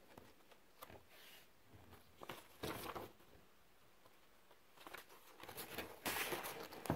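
Faint handling noise of a spiral-bound paper journal: a few soft clicks and rustles, then a longer, louder rustle of pages being turned near the end.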